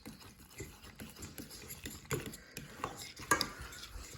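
A spoon stirring thick instant mashed potatoes in a container, with irregular taps and scrapes against its sides.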